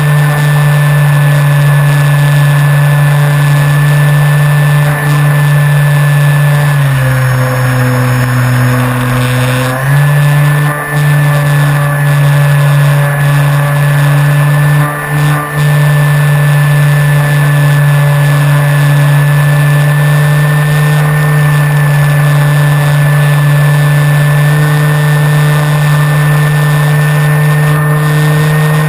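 Flyzone Switch RC plane's battery-powered electric motor and propeller, heard from on board, running steadily under power with a constant whine. About seven seconds in the throttle eases off and the pitch drops; about three seconds later it comes back up to the same steady pitch.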